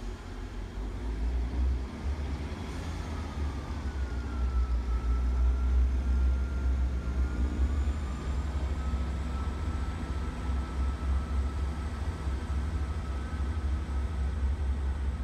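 Diesel multiple unit pulling away from the station: a deep engine rumble builds over the first few seconds, with a whine that rises in pitch and then holds steady as the train draws away.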